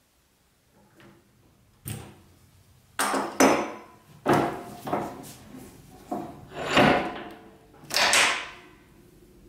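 A string of about nine knocks, clunks and short scrapes of metal being handled at a bench vise, as a small bar clamp and the vise jaws are worked to free a knife being glued into its handle.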